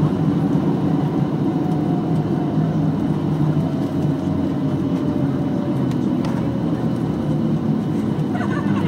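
Cabin noise inside a Boeing 737-800 rolling along the runway after touchdown: a steady low rumble of the CFM56 engines and the wheels, with a faint whine that slowly falls in pitch.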